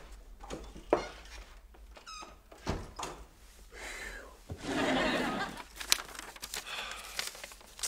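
Paper rustling and tearing as an envelope is torn open and a letter unfolded, loudest about five seconds in. A few light knocks come before it.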